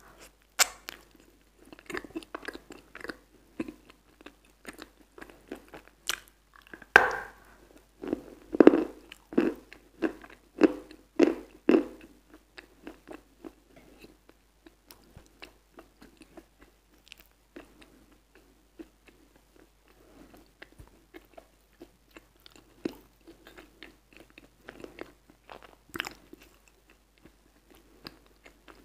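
Close-miked biting and chewing of a frozen white dessert: wet, crunchy bites, loudest in a quick run about seven to twelve seconds in, then softer chewing, with one sharp crunch near the end.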